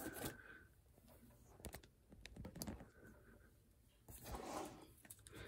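Faint clicks and rustling of plastic sheet protectors in a ring binder being handled and turned, with a slightly louder rustle about four seconds in.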